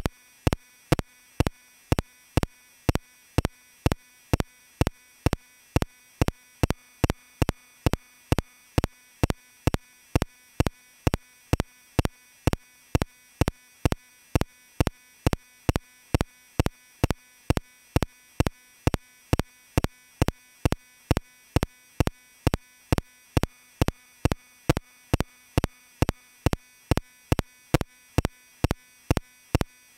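Sharp clicks repeating evenly, about two a second, over a faint steady hum, with no speech.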